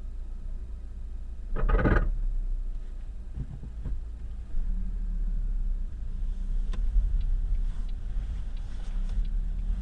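Lada Vesta engine running steadily, with one short, loud crunch from under the hood a little after a second and a half in, then a few faint knocks and light ticks. The owner blames this crunching and knocking on a broken right engine mount.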